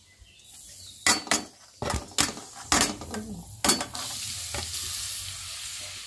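Grated carrots going into hot melted ghee in a steel kadhai: several sharp clinks and scrapes of steel utensils against the pan as the carrots are tipped in, then a steady sizzle of the carrots frying in the ghee, starting a little under four seconds in.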